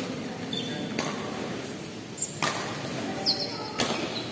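Badminton rally: rackets striking the shuttlecock with sharp hits, roughly a second apart, and short high squeaks of court shoes on the synthetic court floor between the hits.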